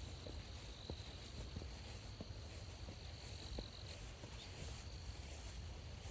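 Crickets trilling in one thin, high, steady tone that fades out about four seconds in, over soft regular footsteps on the trail, about three every two seconds, and a low steady rumble.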